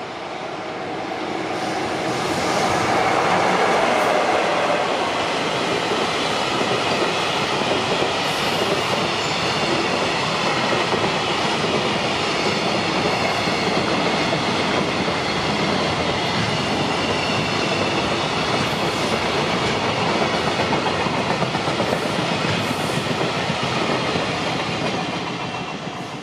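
Container freight train running past: a steady, dense rumble and clatter of wagon wheels on the rails. It swells over the first few seconds, holds, and falls away at the very end. A level-crossing alarm tone can be heard at the start.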